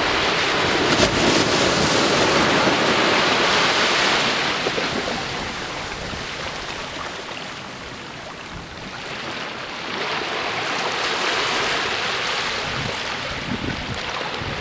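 Small waves breaking on a sandy beach and washing back, the surf swelling over the first few seconds, easing off, then swelling again about ten seconds in.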